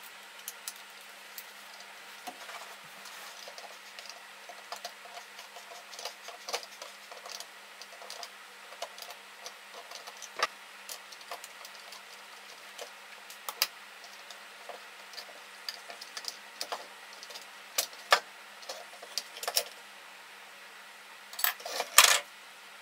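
Hard plastic parts of a COM2003 steering column switch module clicking and clattering as it is taken apart by hand, with a small screwdriver working on the circuit board. Short irregular taps and clicks throughout, with a quick burst of louder knocks near the end.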